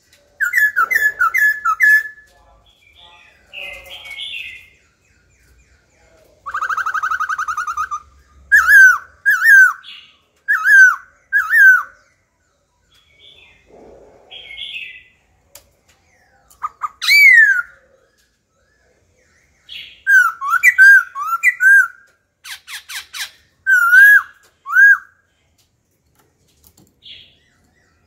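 Black-throated laughingthrush singing loud, varied whistled phrases separated by short pauses. The song includes a quick run of four notes, a short buzzy trill, four ringing notes about a second apart, a sweeping whistle, and a rapid chatter of clicks near the end.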